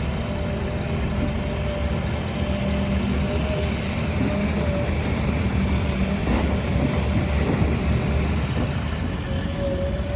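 Diesel engine of a Doosan DX380 excavator running steadily, a low drone with a steady higher whine over it and a couple of faint knocks past the middle.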